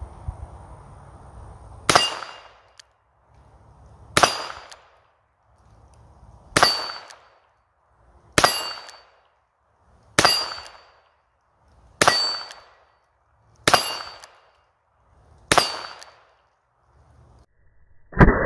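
Rock Island Armory AL22 .22 LR revolver firing eight single shots, slow and evenly spaced about two seconds apart. Each crack has a brief ringing tail.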